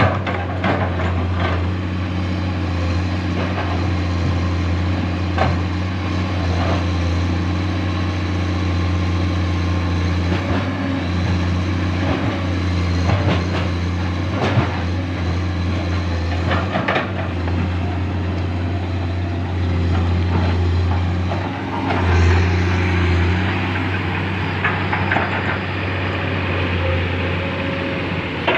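Excavator's diesel engine running steadily under work, briefly louder about three-quarters of the way through, with scattered knocks as the machine works.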